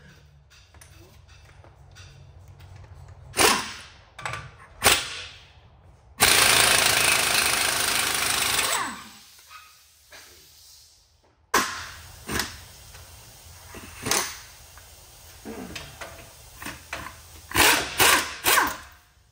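Impact wrench running on the truck's front suspension bolts in one steady burst of about two and a half seconds, with several shorter sharp bursts of tool noise before and after.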